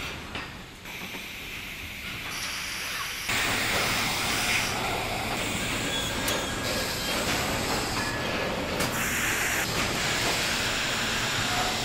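Factory noise of a robotic packaging line: a steady hiss over running machinery, which steps up louder about three seconds in.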